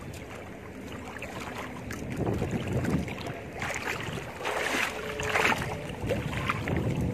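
Water sloshing and splashing as a person wades through shallow water and hauls a fishing net up out of it, in uneven surges.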